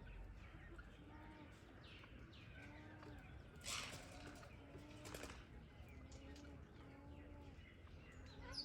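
Faint outdoor bird sounds: a dove cooing, a low note repeated about once a second, over scattered short chirps from small birds. Two brief bursts of wing flapping come about four and five seconds in.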